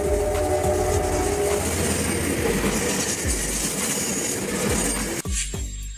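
Double-decker commuter train cars rushing past close by, with steady wheel-on-rail noise and a few low clacks over the rail joints in the second half. Some held tones sound in the first second and a half. The train noise cuts off abruptly near the end.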